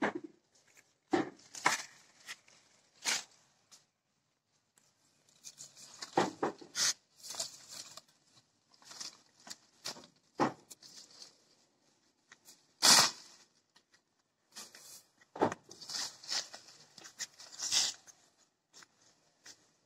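Leafy orange branches rustling, with scattered sharp clicks and knocks as oranges are handled in a plastic crate. The loudest click comes about two-thirds of the way through.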